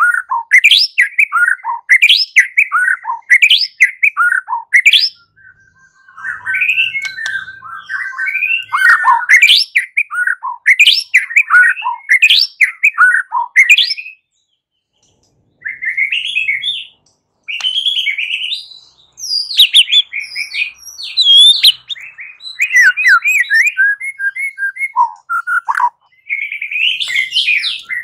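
White-rumped shama (murai batu) singing loudly in rapid phrases of short, sweeping whistled notes, the 'learning to fight' (belajar tarung) song, with a short pause about halfway through.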